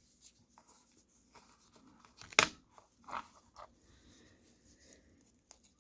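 Hands handling a watch on a stiff NATO strap: faint rustling of the strap with small clicks, the sharpest about two and a half seconds in.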